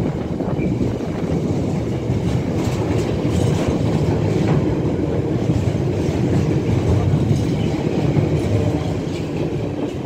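Container wagons of a freight train rolling past at speed: a loud, steady rumble with wheels clattering over the rail joints. Near the end the last wagon goes by and the noise begins to fade.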